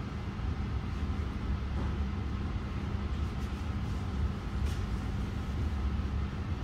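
Steady low background rumble with a constant hum, like a vehicle engine running.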